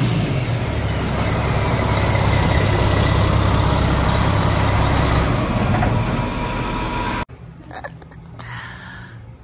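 1998 Mack E7-300 inline six-cylinder diesel engine running steadily on a test stand during its test run. The sound cuts off abruptly about seven seconds in, leaving only faint sound.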